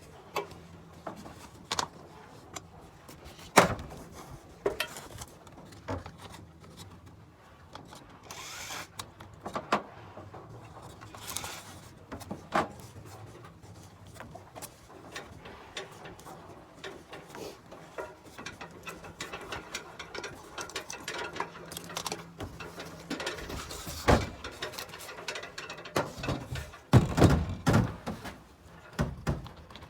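Irregular clicks, taps and knocks of hand tools and metal fittings being worked, with a sharp knock about three and a half seconds in and a cluster of heavier knocks near the end.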